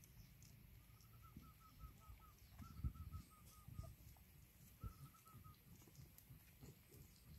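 A bird calling faintly in three runs of quick, evenly spaced short notes at one pitch, about eight a second, the last run shorter. Low rustling and soft knocks come and go underneath.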